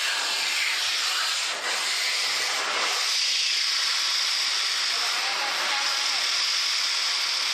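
Excel Xlerator high-speed hand dryer running: a steady, loud rush of air as a hand is held under its nozzle.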